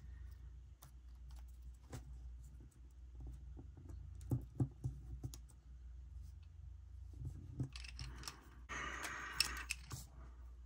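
Light clicks and taps of hands handling sticker scraps and planner paper on a desk, with a few sharper ticks about four seconds in. Near the end comes a second or so of paper rustling and sliding as the sheets are moved.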